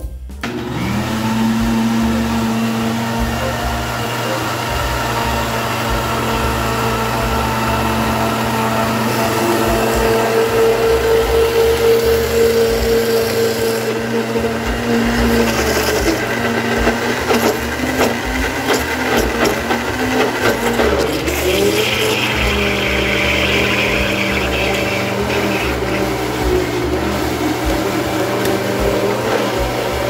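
Countertop blender motor running steadily, mixing a runny pie batter of eggs, oil, water, salt and flour. Its pitch shifts slightly about halfway through, as more flour is poured into the open jar and the batter thickens, and again a few seconds later.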